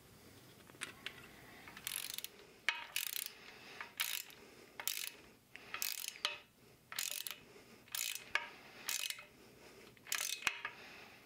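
Ratcheting wrench clicking in short bursts, roughly once a second, as the nuts on the axle-end flange bolts of an AMC 20 rear axle are run down. Each burst is one back-swing of the wrench.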